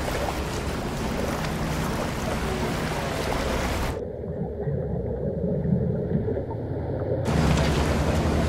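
Open sea and wind noise at the water's surface in choppy conditions. About four seconds in the sound turns muffled and underwater for about three seconds, then the surface wind and water return.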